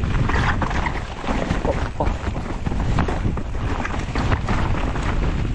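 Wind buffeting the microphone while a mountain bike descends a trail, with a dense run of short clatters and knocks from the bike rattling over rough ground.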